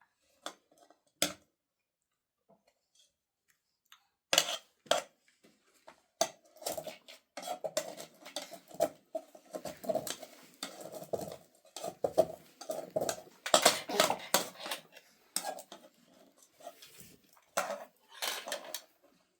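Spoons clinking and scraping against metal dishes during a meal: a couple of lone clicks at first, then busy, irregular clinking from about four seconds in.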